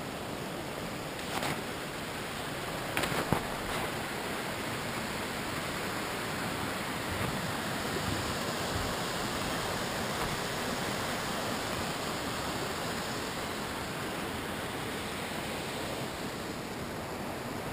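Mountain stream rushing over snow-covered boulders, a steady even rush, with a few sharp clicks in the first four seconds.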